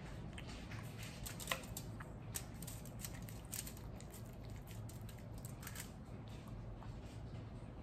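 Close-up eating sounds: chewing a crisp fried taco shell, with many small sharp crunches and clicks, the sharpest about a second and a half in.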